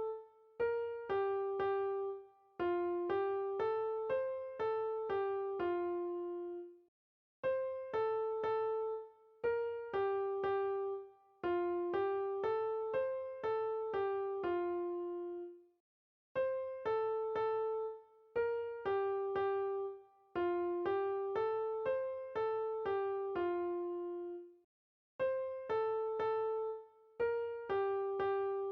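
Background music: a simple piano-like keyboard melody of short, plucked-sounding notes. It plays in a repeating phrase about every nine seconds, with brief silent gaps between phrases.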